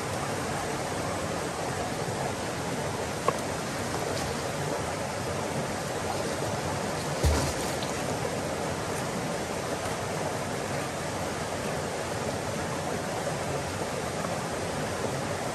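River water rushing over rocky cascades into a pool: a steady, even hiss. A single knock sounds about seven seconds in.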